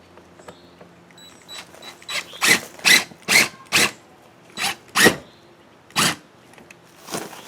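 A dog barking, a series of about eight short, sharp barks in irregular bunches.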